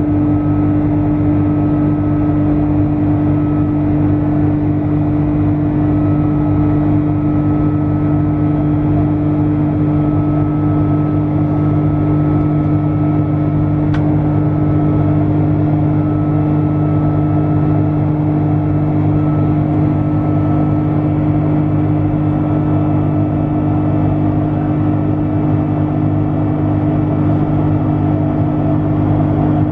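Cabin noise of an Airbus A330-243 in its climb after takeoff: a steady drone from its Rolls-Royce Trent 772B turbofans and the airflow, with steady humming tones running through it. There is a single brief click about halfway through.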